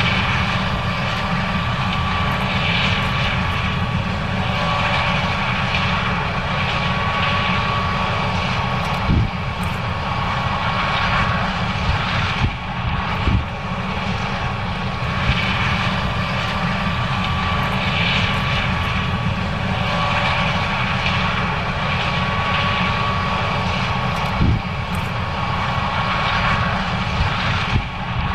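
John Deere S670 combine running while harvesting corn: a steady engine and machinery drone with a constant high whine, broken by a few dull knocks.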